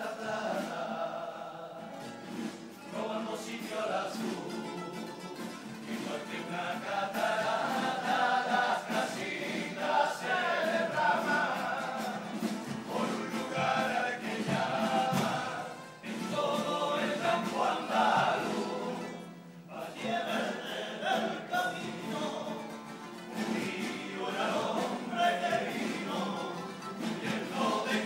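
Carnival group singing a pasodoble in chorus over instrumental accompaniment, the voices swelling and falling with the sung phrases. There are brief dips about 16 seconds in and again near 20 seconds.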